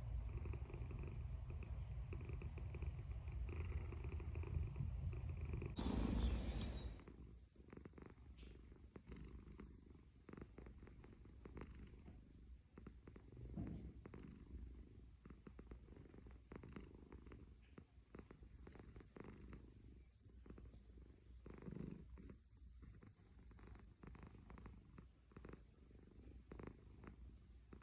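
Domestic cat snoring, a low rumbling breath sound. It is louder for about the first seven seconds, then drops and goes on more faintly.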